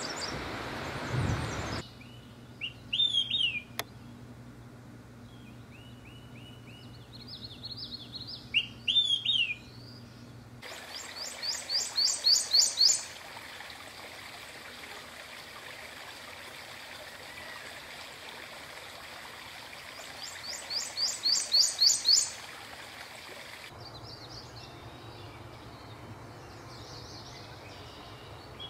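Prothonotary warbler singing: a run of about ten ringing upslurred notes that grow louder, sung twice. Earlier, another songbird gives shorter high phrases, twice.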